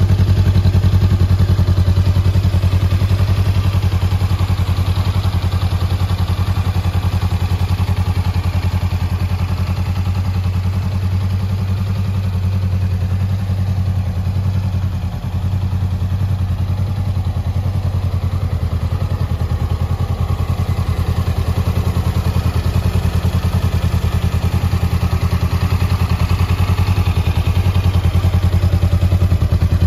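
Honda 400X motorcycle's 399 cc parallel-twin engine idling steadily.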